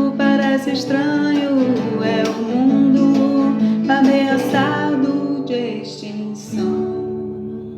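Acoustic guitar strumming under a woman singing long, bending notes; near the end a last chord is held and rings out, fading away.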